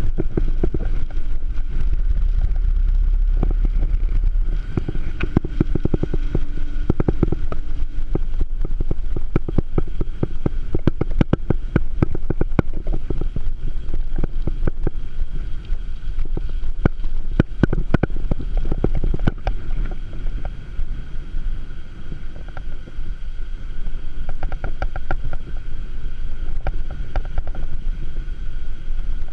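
A bicycle rolling along a paved road, its frame and fittings rattling and clicking over the road surface, under a low rumble of wind buffeting the microphone. The clicks come thickest in the middle part.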